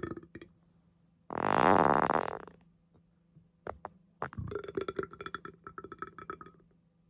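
A person farting and burping: a loud rasping one about a second in, lasting about a second, then two sharp clicks, then a longer fluttering one of about two seconds.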